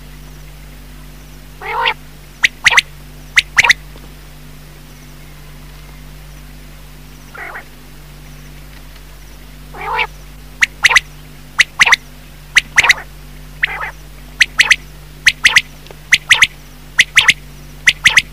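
Quail calling: sharp, high calls in quick pairs that repeat about once a second in the second half, with a few lower, drawn-out notes between them.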